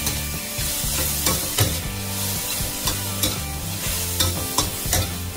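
Metal wok ladle stirring and scraping mushrooms around a stainless steel wok over a gas flame, with a steady sizzle of frying and several sharp knocks of the ladle against the wok.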